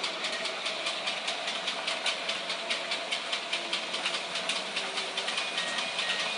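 Model train running on its track: a steady electric motor whine with rapid, even clicking of the wheels over the rail joints, about five clicks a second.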